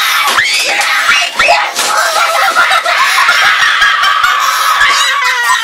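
Cartoon mouse laughter from Leopold the Cat mixed with the Angry German Kid's screaming, played backwards. Choppy high-pitched laughing sounds give way after about two seconds to a long shrill cry that slowly falls in pitch.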